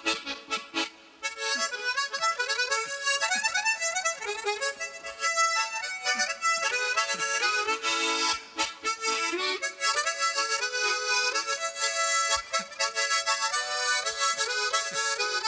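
Solo harmonica playing a lively Chinese folk melody with quick runs of notes. It opens with short detached notes, breaks off briefly about a second in, then plays on without a pause.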